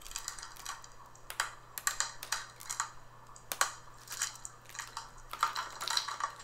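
Thin clear plastic protective film crinkling and crackling as it is peeled off a new laptop's screen bezel and handled, in irregular sharp crackles that come thickest near the end.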